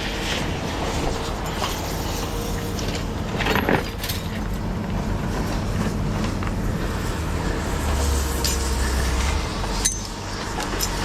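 A steady vehicle engine hum, with a few light clinks and knocks scattered through it.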